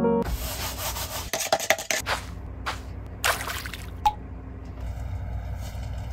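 Irregular scraping and rubbing strokes as acrylic paint is poured and worked out of a plastic cup onto a canvas. From about five seconds in, faint steady tones sit under the noise.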